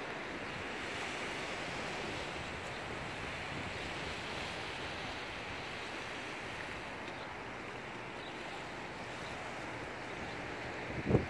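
Small waves lapping steadily on a gravel lakeshore, with wind. A brief low thump stands out near the end.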